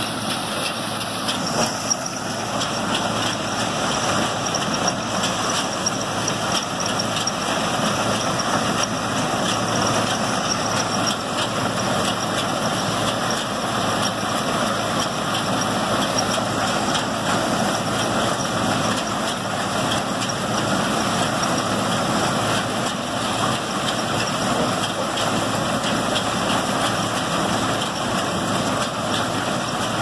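A combine running steadily while cutting dry soybeans: its engine and header and threshing machinery give a constant hum under a rattling hiss of crop passing through.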